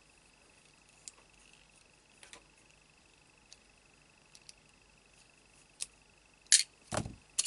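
A few small metal clicks as a Fuse tool's tip is worked on with scissors over its metal stand. Near the end comes a sharp metallic clack, then a louder knock that drops in pitch.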